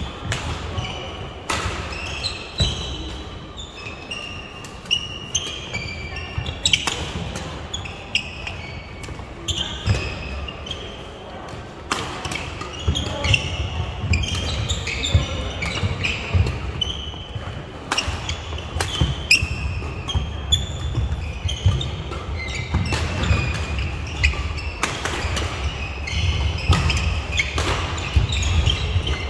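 Badminton doubles play: sharp racket-on-shuttlecock hits and shoes squeaking on the court floor, over a low hall rumble.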